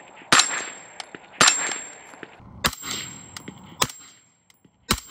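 Suppressed gunshots from a short-barreled 5.56 rifle fitted with a Huxwrx Flow 556 Ti titanium suppressor. There are five sharp shots about a second apart, each fading into a short tail, with a thin high ringing tone hanging between them.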